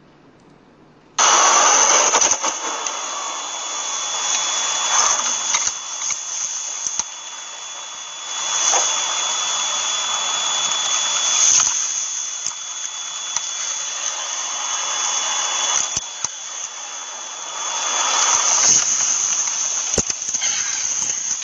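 Loud steady rushing noise with a thin high whine, cutting in abruptly about a second in and swelling now and then: road and engine noise heard inside a moving vehicle's cab.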